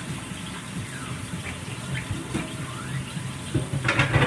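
Flank steak searing in hot oil in a pan, a steady sizzle, with a few short clatters near the end.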